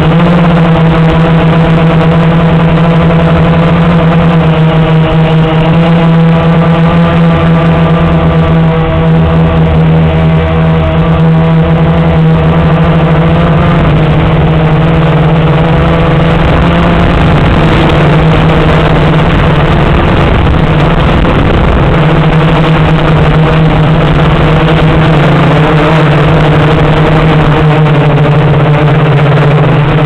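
Blade 350 QX quadcopter's four electric motors and propellers buzzing steadily in flight, loud and close through the camera mounted on the craft, with several pitches drifting slowly up and down as the motor speeds change.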